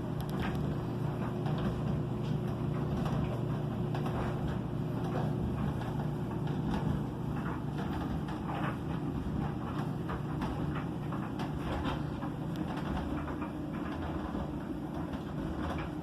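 LG front-load washing machine spinning its drum at high speed in the extra-high spin: a steady motor hum with a faint steady whine above it, and scattered light ticks and swishes from the drum and laundry.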